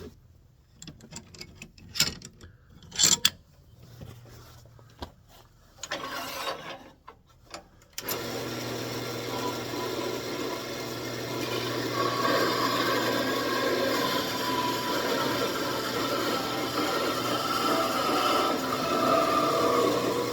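A few clicks and knocks of handling, then about eight seconds in a wood lathe starts and runs with a steady hum. From about twelve seconds a tool scrapes into the spinning walnut with a wavering whine, cutting the finished rosette off.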